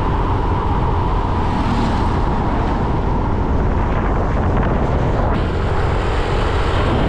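Riding a motorbike along a road: steady wind rush on the microphone over the bike's running engine.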